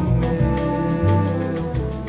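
Background music: an instrumental stretch of a song with sustained notes over a steady beat, between sung lines.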